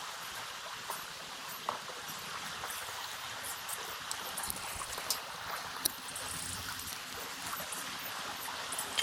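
River water flowing: a steady rushing hiss of current with scattered small ticks and splashes.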